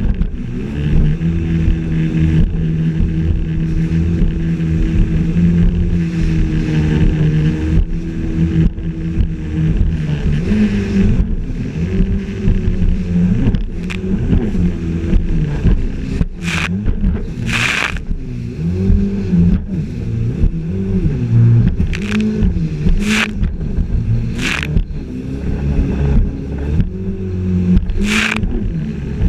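Yamaha jet ski engine running at speed, holding a steady pitch for the first several seconds, then rising and falling as the throttle changes over the waves. In the second half, water hits several times in sharp splashes.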